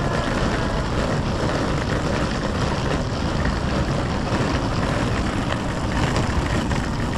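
Steady rumble of a hard-shell wheeled suitcase rolling over sidewalk paving, mixed with city street traffic.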